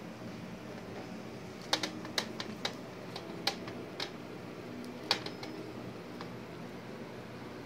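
A run of sharp, irregular clicks and clacks, about ten in a few seconds and fewer near the end, as a capuchin monkey climbs and swings on hanging chain links, over a low steady hum.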